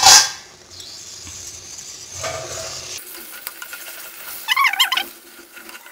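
A stainless-steel lid clanks once as it comes off a clay pot, then gongura (roselle) greens with tomato hiss and simmer in the pot as they are stirred with a wooden spoon; the hissing fades about three seconds in.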